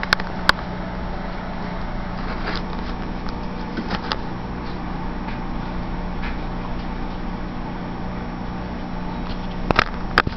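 A steady low mechanical hum, with a few sharp clicks about half a second in and again near the end.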